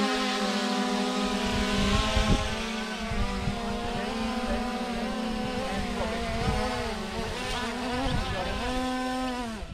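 Quadcopter drone hovering close by, its rotors giving a steady high buzzing whine that wavers in pitch as it is flown in; the pitch drops just at the end as the motors wind down.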